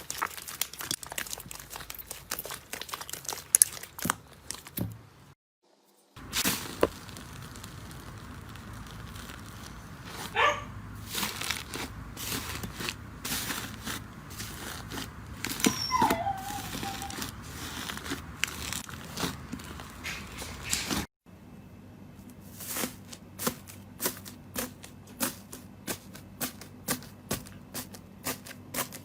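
Slime being squeezed and poked by hand, giving dense crackling and popping clicks, with a couple of brief squeaks. The sound breaks off in a short silent gap about five seconds in and changes character again about 21 seconds in, where a faster run of sharp pops begins.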